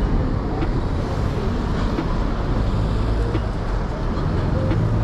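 Steady road traffic noise of a busy city street.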